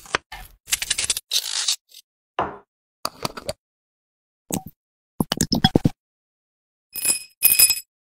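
Close-up food-prep sounds in short separate bursts with silence between: a knife cutting through a crisp green apple and apple pieces being handled and set down. Near the end comes a ringing clink of a glass jar as pieces are dropped into it.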